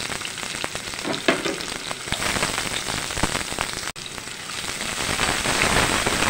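Sliced onions sizzling and crackling in hot mustard oil with fenugreek seeds and cumin in a kadhai. The sizzle cuts out for an instant about four seconds in and grows louder toward the end.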